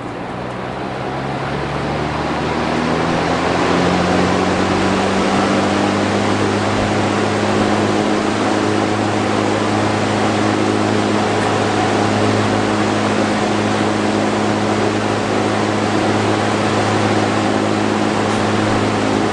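Vintage Dominion box fan's motor and blades coming up to speed: a steady electric motor hum under a whooshing rush of air, with tones rising over the first few seconds as it gathers speed, then running steadily.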